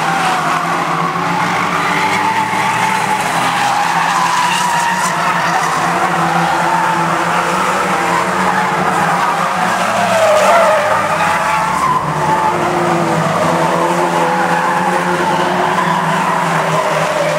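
A pack of banger racing cars running hard around the oval, several engine notes rising and falling over one another, with tyres squealing as the cars slide through the corners. The noise swells briefly about ten seconds in as cars pass close.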